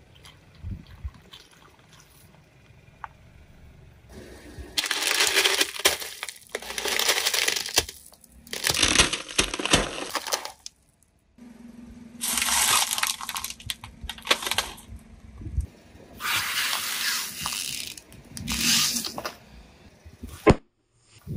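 Car tyre rolling over and crushing brittle objects: crunching and cracking in about six bursts, each a second or two long.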